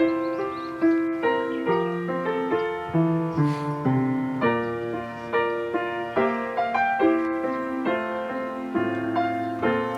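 Background piano music: a slow melody over chords, each note struck and fading.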